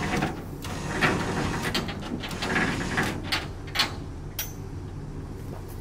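Powered lift gate at the back of a bus-conversion car hauler tilting open: a motor hums steadily while the metal gate creaks and gives several sharp clanks.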